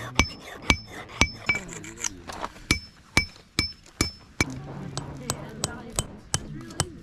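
Hand hammer striking a nail on metal to spread it flat into an arrowhead, about two blows a second, each with a short bright metallic ring; the blows grow lighter after about four seconds.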